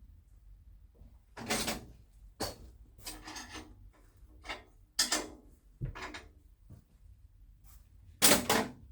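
A series of short scraping and sliding noises, about seven in all with pauses between, like parts being slid and handled; no motor is running.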